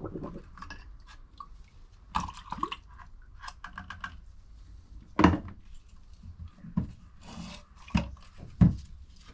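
Small metal parts being handled and set down on a workbench after soaking in rust remover: rubbing and rustling of gloved hands, with a few sharp knocks and clatters, the loudest about five seconds in and twice near the end.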